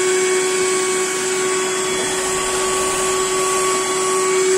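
Maruti Suzuki-branded 12-volt handheld car vacuum cleaner (a combined vacuum and tyre-inflator unit in vacuum mode) running steadily: a constant motor hum with a whine over a rush of air, as its narrow nozzle sucks dirt off a car floor mat.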